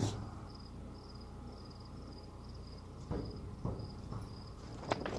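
Crickets chirping in a steady, even rhythm, about two to three high chirps a second, with a few soft knocks about three and five seconds in.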